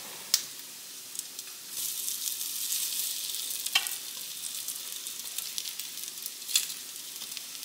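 Salmon patties frying in a nonstick skillet, a steady sizzle that grows louder about two seconds in as they are turned with a spatula. Three sharp clicks of the spatula against the pan.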